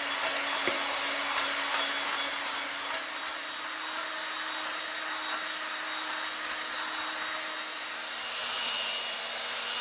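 Electric mixer whipping egg whites and sugar into a Swiss meringue, a steady motor whine with the beaters whirring in the bowl. Its pitch shifts slightly lower about eight seconds in, with a thin higher whine added.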